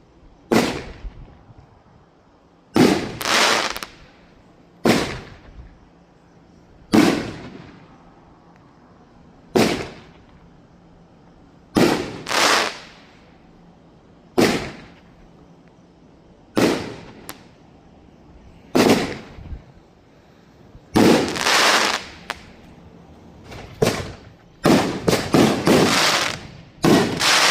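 Firework shots going off one after another, a sharp bang about every two seconds, each trailing off quickly, with quicker bunches of bangs near the end.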